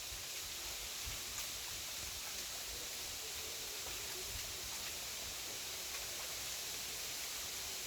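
Bamboo leaves rustling in the wind as a steady, even hiss, with a few faint ticks and a low rumble underneath.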